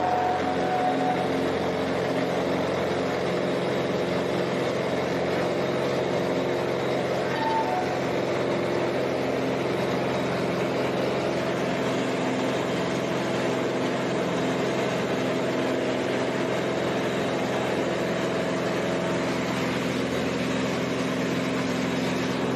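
Small single-engine propeller plane's engine heard from inside the cabin, droning steadily with a constant pitch during a labored climb over the trees.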